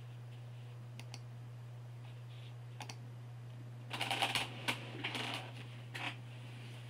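Computer keyboard typing: a few isolated key clicks, then a quick flurry of keystrokes about four seconds in. A steady low electrical hum runs underneath.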